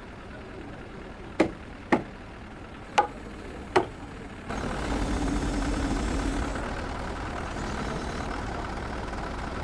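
Four sharp knocks, the last three spaced about a second apart. Then, about halfway through, a steady, low engine sound comes in and keeps running.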